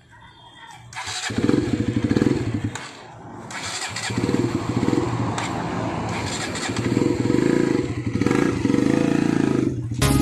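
KTM Duke 125's single-cylinder engine, breathing through a modified aftermarket exhaust, starts about a second in. It is revved in several surges with a brief dip between them, and the bike rides away near the end.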